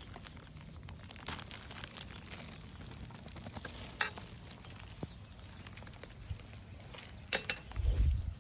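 Footsteps crunching and crackling on a forest trail, with a loud low thump near the end.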